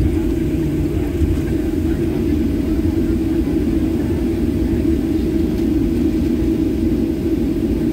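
Cabin noise of a jet airliner taxiing: the steady drone of the engines at taxi power with a low rumble from the wheels rolling over the taxiway, heard from inside the cabin.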